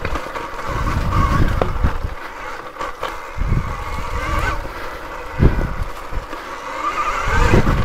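2020 KTM Freeride E-XC electric dirt bike on a woods trail: a faint electric motor and gear whine that rises near the end, over the noise of the tyres rolling on leaves and dirt. A single thump about five and a half seconds in is the loudest sound.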